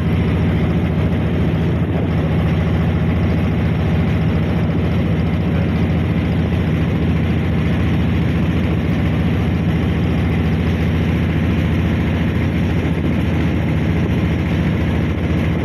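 Wooden boat's engine running steadily under way, a loud low drone with rapid even pulsing.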